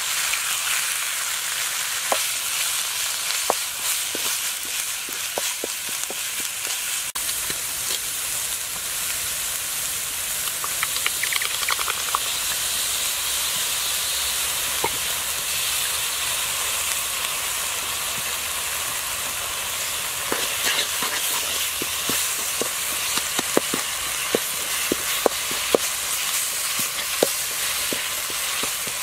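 Spice paste frying in hot oil in a wok: a steady sizzle, with the wooden spoon scraping and tapping against the pan as it is stirred, the taps coming more often near the end.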